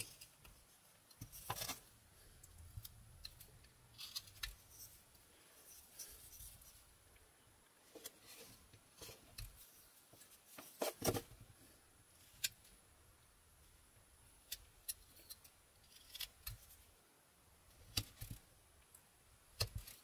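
Mora 122 carving knife slicing short cuts into a basswood block: irregular scrapes and snicks, with a louder run of cuts about eleven seconds in.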